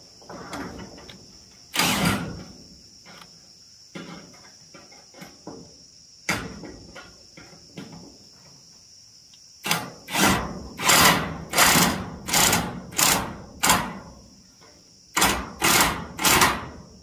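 Cordless impact driver driving self-tapping roofing screws into corrugated steel sheet in short trigger bursts, with a quick run of bursts in the second half as each screw is seated.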